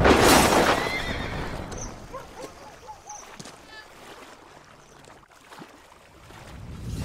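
Shattering-glass sound effect: a loud crash fading over about two seconds into scattered small tinkling and chirping fragments, then another crash swelling up near the end.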